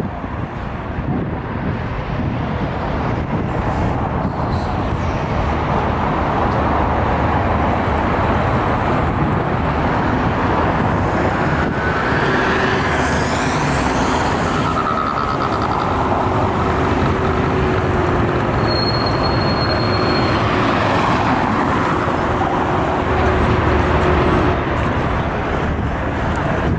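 Steady road traffic noise from cars and buses passing on a city street, with a faint held low tone through the second half and a brief high whine a little past the middle.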